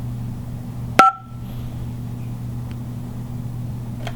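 2GIG Go!Control security panel touchscreen giving one short key-press beep about a second in, over a steady low hum.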